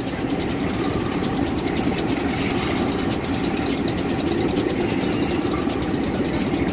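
Diesel locomotive engines running steadily at low power as one locomotive creeps up to another to couple on as a banker. A faint high whistle comes and goes.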